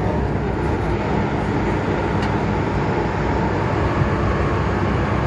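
Inside an MTR M-Train (Metro-Cammell electric multiple unit) running through an underground tunnel: a steady, loud rumble of wheels on rail with a low hum.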